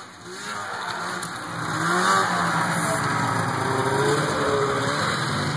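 Arctic Cat F7 snowmobile's two-stroke twin engine running at speed. It grows louder over the first two seconds as the sled approaches, then passes close by, its note wavering up and down with the throttle.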